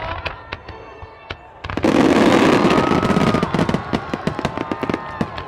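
Aerial fireworks going off: a loud burst a little under two seconds in, followed by a rapid crackling of many small bursts.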